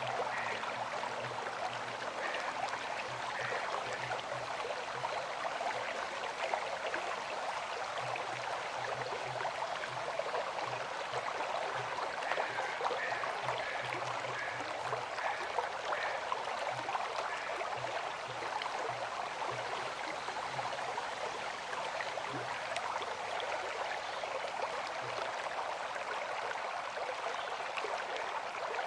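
River water flowing, a steady rushing sound with no pauses.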